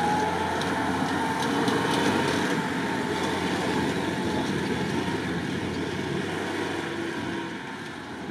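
UAZ off-road vehicle driving hard through a muddy course, its engine and drivetrain running steadily under load. A thin whine climbs slightly in pitch over the first few seconds, and the whole sound eases off a little near the end.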